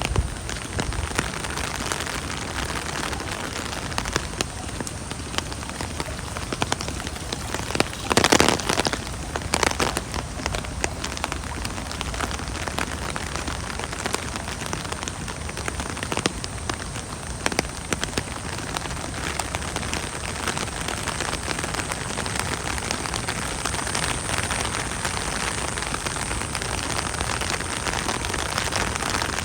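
Steady rain falling on surfaces, a dense patter of many small drops ticking over an even hiss. About eight seconds in there is a brief louder rush lasting under a second, and a smaller one just after.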